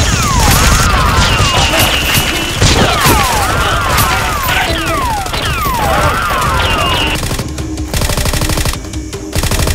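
Gunfire sound effects: a dense volley of shots with several quick falling whistle-like sweeps, ending in a fast, even machine-gun burst, over background music.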